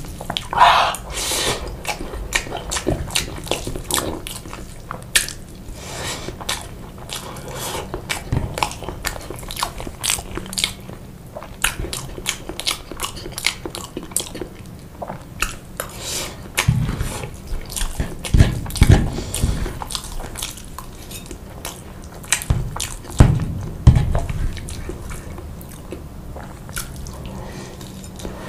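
Close-miked chewing of chicken and pasta in sauce: many wet mouth clicks and smacks, with a few louder low thumps in the second half.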